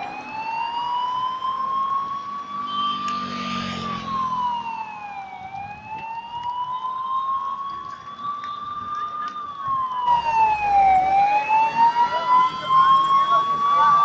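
Emergency vehicle siren wailing slowly. Its pitch climbs for about four seconds, drops back in under two, and repeats. It grows louder about ten seconds in.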